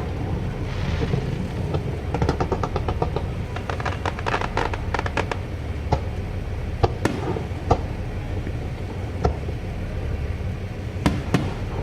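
Fireworks bursting: a rapid run of crackling pops from about two to five seconds in, then single sharp bangs a second or so apart, over a steady low rumble.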